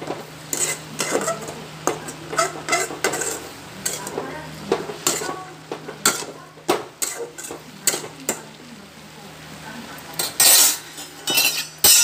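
A metal spoon stirring chopped radish and radish greens in a metal kadai: irregular clinks and scrapes against the pan, with louder clanks near the end.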